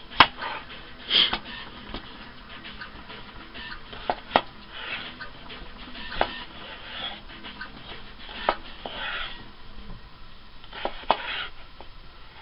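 Kitchen knife slicing red potatoes on a plastic cutting board: irregular sharp knocks of the blade meeting the board, with short rasping cuts through the potato between them.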